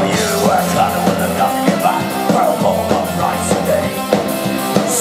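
Live metal band playing a punk rock song with electric guitars and a drum kit.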